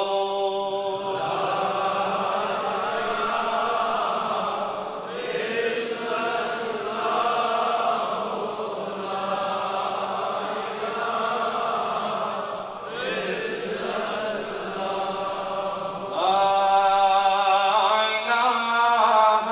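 Islamic zikr chanting in call and response: a single male voice leads the phrase, then a large group of men chants it back together, and the lead voice returns about 16 seconds in.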